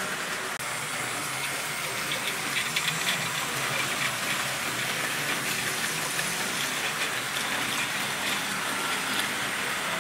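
Model trains running round the track: the steady whirr of small electric locomotive motors and the rolling rattle of wheels on the rails, with a brief run of clicks about two to three seconds in.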